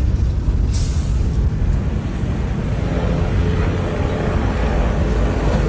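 Road noise inside a moving car: a steady low rumble of engine and tyres, with a brief hiss about a second in.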